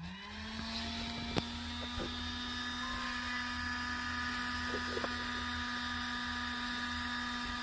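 A small 12-volt motor-driven car accessory, wired straight to a solar charge regulator, is switched on. It spins up within a fraction of a second and then runs with a steady hum, with a single click about a second and a half in.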